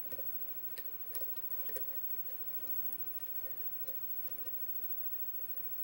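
Hook pick and tension wrench working the pins of a five-pin Kwikset pin-tumbler lock: small, irregular clicks and taps as the pick lifts pins against tension.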